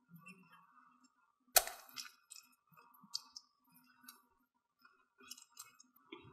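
Silicone spatula mixing a thick grated-potato and egg batter in a glass bowl: scattered light clicks of the spatula against the glass, with one sharp knock about a second and a half in.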